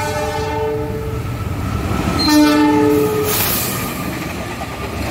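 Diesel locomotive passing with two horn blasts over the rumble of the train. The first blast is already sounding and ends about a second in; the second, about a second long, starts a little after two seconds in and is followed by a short hiss.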